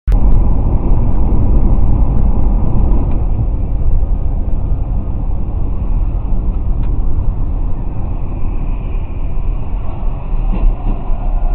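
Steady low road rumble and engine noise inside a car's cabin at highway speed, picked up by a dashcam's microphone.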